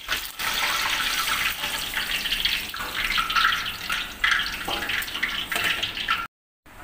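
Eggplant halves deep-frying in hot oil, a steady sizzle that cuts off abruptly for a moment near the end.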